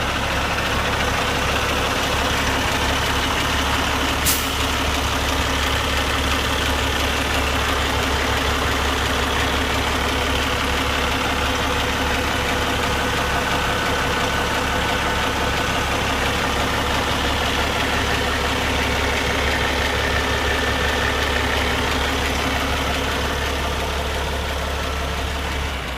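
Cummins ISX diesel engine of a 2012 Peterbilt 388 highway tractor idling steadily, sounding healthy. A single sharp click comes about four seconds in.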